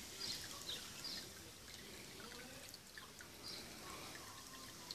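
Small self-built garden fountain, fed by an aquarium pump, trickling and splashing steadily into its pond, with a few brief drip-like splashes on top.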